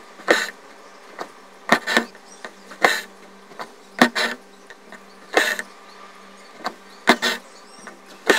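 Embroidery needle piercing fabric stretched taut in a hoop, with green stranded cotton thread drawn through after it: a string of short scratchy swishes and clicks, about one or two a second, as back stitch is worked.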